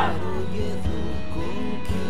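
Background music: a song playing.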